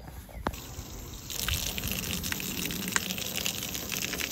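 A jet of water from a hose spraying hard onto the boat's deck to wash it down, starting about a second in as a steady hiss with spattering.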